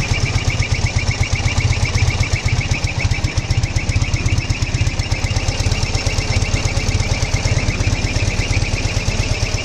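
Ural motorcycle's flat-twin engine running steadily at a fast, even beat, with a high whistle pulsing in time with the firing, which the owner places in the right cylinder.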